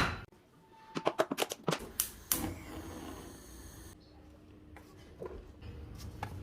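Kitchen handling sounds: a quick run of light clicks and taps, then a single louder clatter a little over two seconds in, followed by faint ringing.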